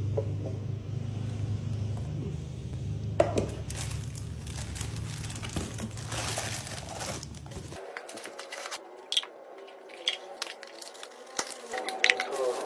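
Plastic packaging crinkling and tearing with scattered sharp clicks as a plastic storage container is unboxed.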